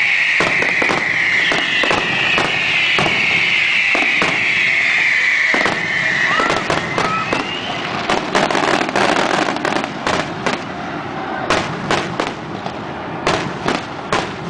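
Fireworks display at close range. A loud hiss slowly drops in pitch over the first six seconds while repeated sharp bangs go off. Short whistles follow, then a thick burst of crackling and popping about eight seconds in, and separate bangs toward the end.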